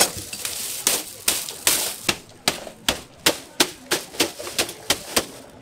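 Rubber mallet pounding a plastic bag of ice on a steel tray, cracking the ice into smaller pieces. About fifteen sharp blows, coming faster in the second half.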